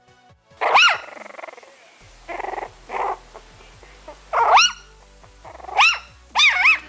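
An animal making loud, high-pitched calls that rise and then fall in pitch: one about a second in, then three more in the second half, the last with a double wobble, with two short softer huffs between.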